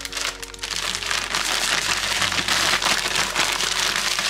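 Gallon plastic bag holding chicken wings and a brown-sugar spice rub being shaken to coat the wings: a steady crinkling rattle of plastic and grains.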